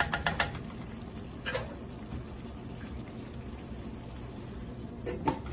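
Coconut-milk chicken curry simmering in a frying pan, a soft steady bubbling. A quick run of clicks from a wooden spatula against the pan comes in the first half second, with single knocks about a second and a half in and near the end.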